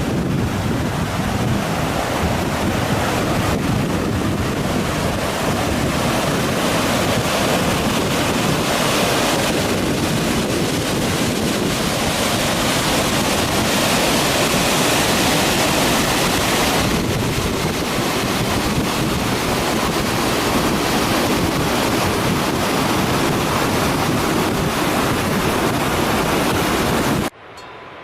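Waterfall: a loud, steady rush of falling water that cuts off suddenly about a second before the end.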